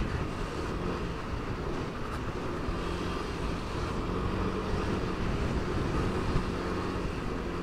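Motor scooter's engine running steadily at cruising speed, mixed with road and wind noise.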